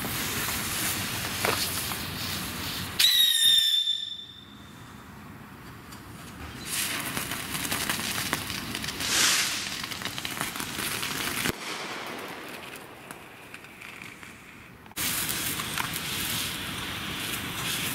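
Ground-novelty fireworks burning, their sparks spraying with a steady hiss. A short, high whistle sounds about three seconds in. A louder hiss starts near the end as the police-car novelty sprays sparks.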